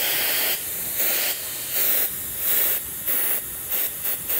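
Dyson Airwrap hair styler blowing air: a steady rushing hiss over a thin, high motor whine. The rush jumps louder and softer every half second or so as the barrel moves.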